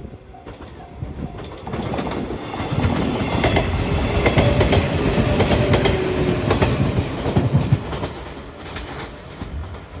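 JR 115 series electric train passing close by. The level-crossing bell rings at first, then the train grows loud from about two seconds in, with quick clicks of wheels over rail joints, and fades toward the end as it moves away.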